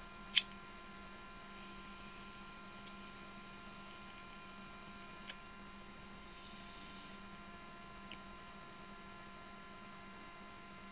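Steady electrical mains hum with several faint constant tones. A single sharp click comes about half a second in, and fainter ticks follow later.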